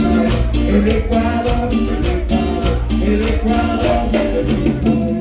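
Latin dance band playing an instrumental passage: a held melodic line over a steady bass, with maracas and percussion keeping an even beat.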